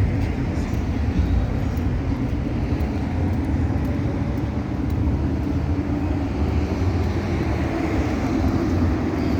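Busy city street ambience: a steady rumble of traffic going by, with no single event standing out.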